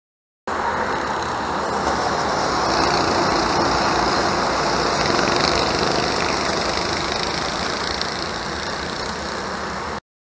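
Go-karts running on the track, their engines blended into a steady drone that cuts in abruptly, swells a little and eases, then cuts off abruptly near the end.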